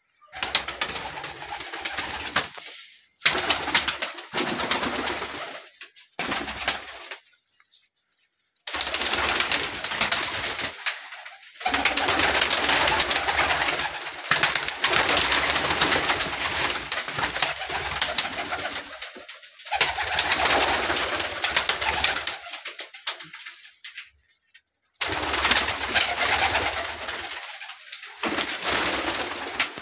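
Domestic pigeons cooing inside a small loft. Loud noisy stretches cut in and out abruptly, with several short silent gaps between them.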